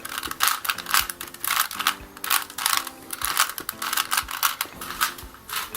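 Rubik's Cube faces being turned over and over, a rapid run of plastic clicks and clacks, over soft background music.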